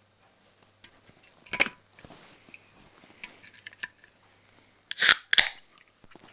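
Aluminium can of sparkling water being handled, with scattered clicks, then opened by its ring-pull: a sharp click, and about five seconds in two short loud hissing bursts as the carbonation escapes.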